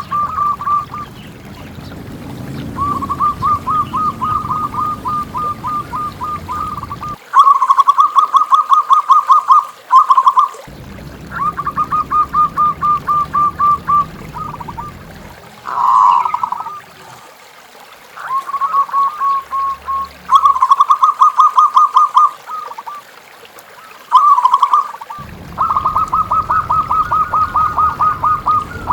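Zebra doves (perkutut) cooing: bouts of a few seconds of rapid, evenly repeated short notes, one after another.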